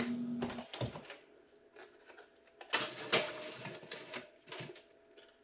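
An electric kitchen oven being loaded: the oven door opened and the metal wire rack rattling and sliding, loudest about three seconds in, with a few sharp clacks.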